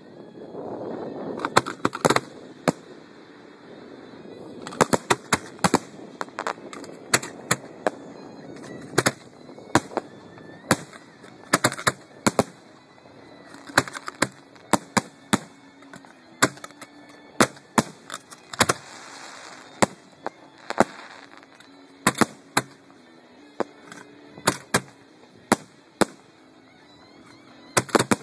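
Aerial fireworks shells of a professional display going off in quick succession: dozens of sharp, irregularly spaced bangs, about one or two a second. There are stretches of crackling near the start and again about two-thirds of the way through.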